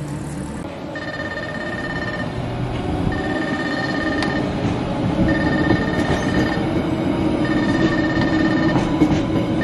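Level-crossing warning signal sounding in long, even beeps about every two seconds as the Haeundae Blue Line Park beach train rolls through the crossing, over the low rumble of the passing train.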